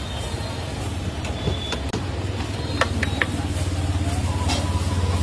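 A steady low engine-like hum with a fast, even pulse, growing slightly louder near the end, with a few light clicks in the middle.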